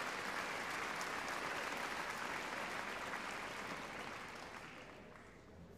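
Large audience applauding, a steady patter of many hands that dies away over the last second or two.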